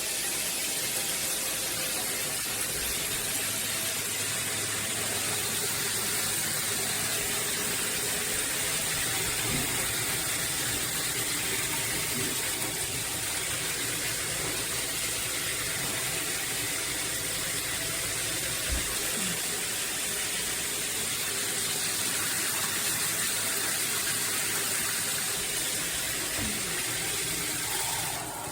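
Shower head spraying water, a steady loud rush with a bright, hissy top.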